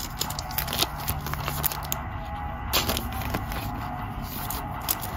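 A stack of glossy trading cards handled and slid one behind another, giving scattered light clicks and rustles.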